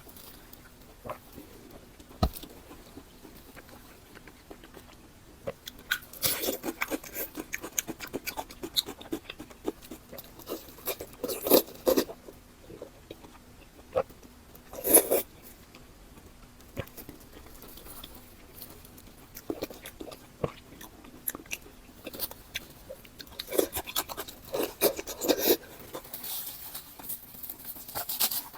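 Close-up eating sounds: bites and chewing in irregular bursts of crunchy, smacking mouth noise with pauses between, the loudest bites coming twice near the middle. A faint steady low hum lies underneath.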